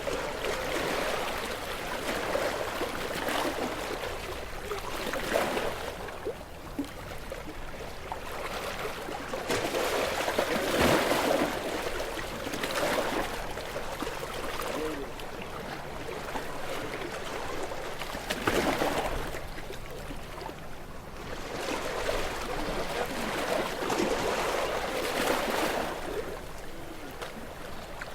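Sea waves breaking and splashing against rocks, swelling and washing back in irregular surges a few seconds apart.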